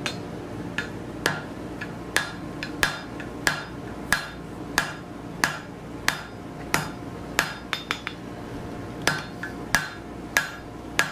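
Hand hammer striking a red-hot high-carbon steel bar on an anvil, about three blows every two seconds, each with a short ring, with a brief pause about eight seconds in. The bar is being drawn down to a taper.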